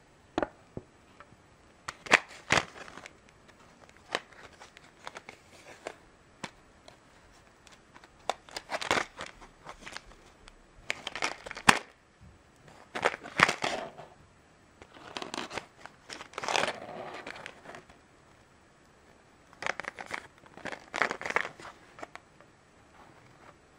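Clear plastic blister cover and paper backing card being handled and worked open by hand: separate bursts of crinkling and crackling every few seconds, with a few sharp clicks.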